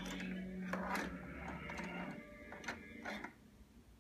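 Small plastic dollhouse furniture pieces clicking and tapping as a toddler handles them. Under the clicks there is a steady low hum that fades out a little after two seconds in.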